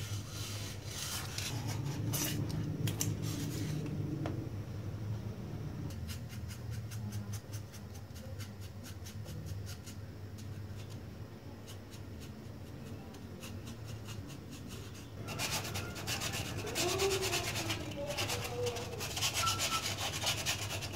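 Rubbing and scraping of styrofoam being worked by hand, in fine scratchy strokes over a steady low hum. The scraping eases off in the middle and grows busier again about fifteen seconds in.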